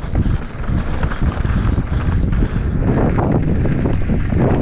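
Wind buffeting the microphone over the rumble and rattle of a Transition Sentinel V2 mountain bike's tyres and frame on a fast descent down a loose dirt trail.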